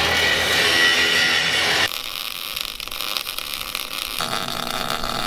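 Background music that cuts off abruptly about two seconds in. After a moment of faint hiss, the steady crackling hiss of a MIG welding arc on steel starts about four seconds in.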